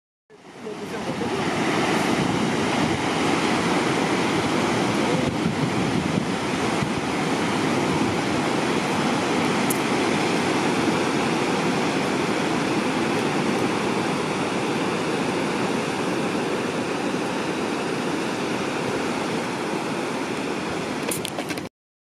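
Steady rushing wash of ocean surf breaking on a shore. It fades in at the start and cuts off suddenly near the end.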